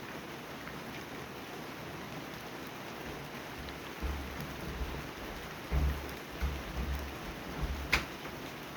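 Steady rain falling. About halfway through, a series of low rumbling thumps comes and goes for a few seconds, and one sharp click sounds near the end.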